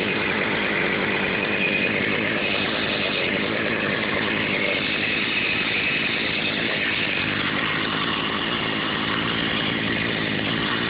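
Poulan 2055 32cc two-stroke chainsaw engine running steadily at a constant speed, freshly rebuilt with new fuel lines and a carb kit.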